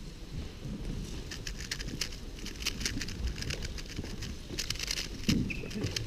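Gan Air SM speedcube being turned fast, its plastic layers clicking in quick irregular runs that thicken about a second in.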